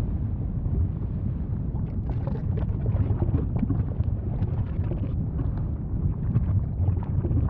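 Volcano rumbling deeply and steadily, with scattered crackles and pops from about two seconds in.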